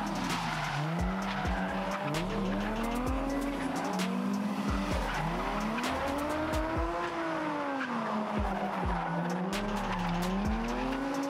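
Two drift cars, a Nissan 350Z and a BMW coupe, sliding in tandem, their engines revving up and down again and again as the drivers work the throttle. Tyres squeal and skid over it.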